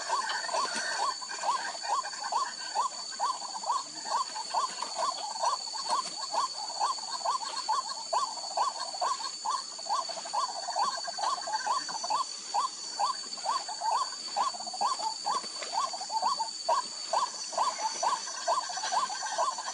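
White-breasted waterhen calling, one short call after another in an even, fast rhythm of about two to three a second, over a steady high-pitched whine.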